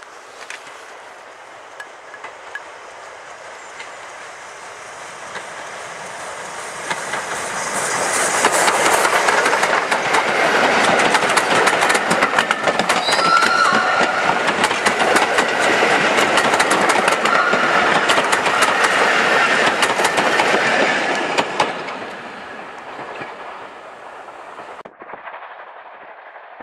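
A train hauled by Ivatt 2MT steam locomotive no. 46512 passing close by. It builds up over several seconds, is loudest for about a dozen seconds with the wheels clicking over the rail joints, then fades away.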